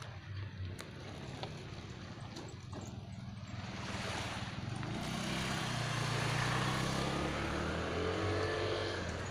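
An engine passes by, growing louder from about four seconds in and easing off near the end, its pitch dropping as it goes past.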